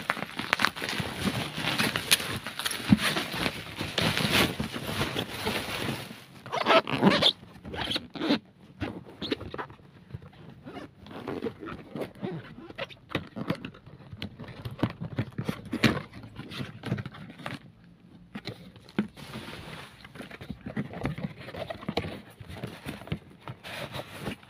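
Plastic mailer bag crinkling and rustling as the parcel is torn open and handled, loud and continuous for about the first six seconds. After that come intermittent shorter rustles and scrapes as a cardboard box is opened and the foam packing is pulled out.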